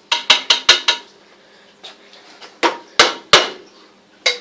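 Sharp taps of hard objects knocking together: five quick taps in the first second, then three louder knocks around three seconds in and one more near the end.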